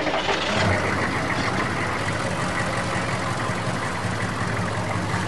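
Car engine starting up about half a second in, then idling steadily.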